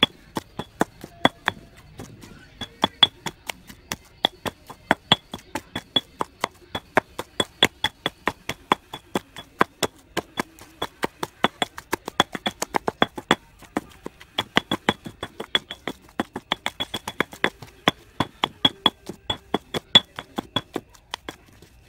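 Pestle pounding a lemongrass paste in a stone mortar: sharp knocks at about four a second, with a few brief pauses, stopping just before the end.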